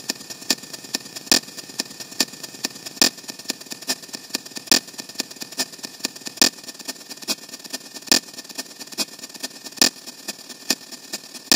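CapCut's explosion sound effect stacked on itself so many times that it no longer sounds like a blast. What is left is a steady hiss with an even train of sharp cracks, a louder crack about every second and three-quarters and smaller ones in between.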